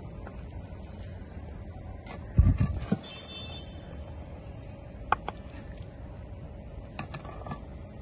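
A ladle scooping biryani out of a clay pot and knocking against the clay pot and plate: a few sharp taps and clicks, with a louder, deeper thump about two and a half seconds in.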